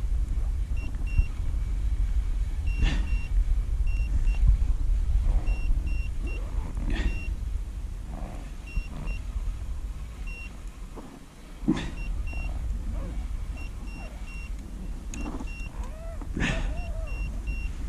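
Wind buffeting the microphone as a steady low rumble while a fish is played from a float tube, with a few brief sharp noises and small groups of short, high electronic beeps every second or two.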